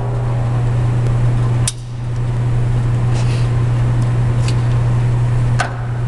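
Two pistol shots, about 1.7 and 5.6 seconds in, sharp cracks that briefly duck the recording level, with a few fainter cracks between and after them. A steady low hum underlies them.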